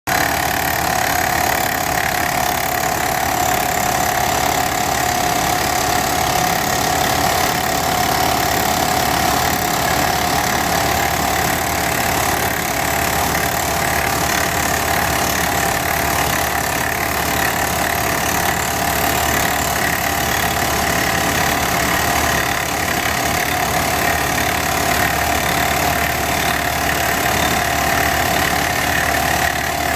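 Hyundai rock drill rig running steadily, an even, unbroken machine noise with no pauses or changes.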